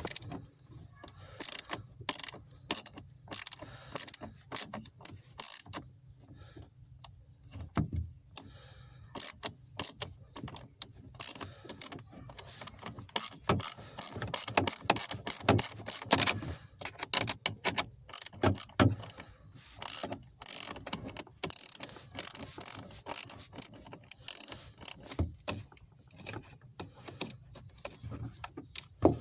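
Hand tool working the T20 Torx screws of a rear A/C blend door actuator: runs of quick ratchet-like clicking mixed with knocks and scrapes on plastic, in irregular bursts.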